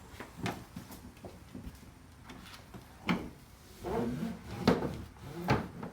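Knocks and rattles from a Thule bike rack's hooks and frame being handled and positioned on a hatchback. There are a few light knocks, a sharper one about three seconds in, and a cluster of knocks near the end.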